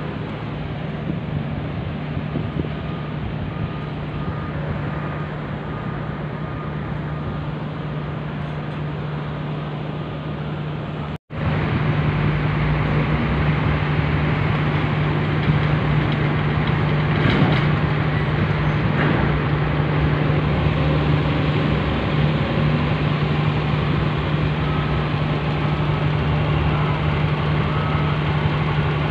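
Heavy diesel truck engines idling, a steady low hum over rumbling noise. About eleven seconds in the sound drops out for an instant and comes back louder.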